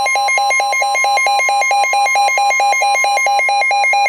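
NOAA Weather Radio alert: the steady 1050 Hz warning alarm tone sounding together with a weather radio receiver's rapid electronic alarm, about eight beeps a second warbling between two pitches. It signals that a new warning, here a special marine warning, is about to be broadcast.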